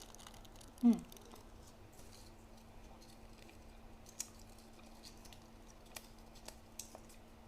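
Quiet room tone with a steady low hum. A brief vocal sound comes about a second in, then a few faint scattered clicks and taps from small handling noises.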